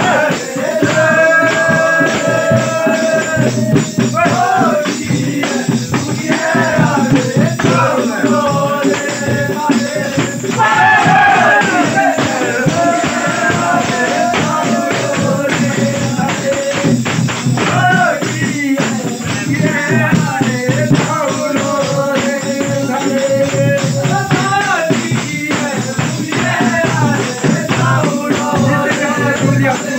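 Himachali naati folk song: a singer's melody with long held notes over a steady percussion beat.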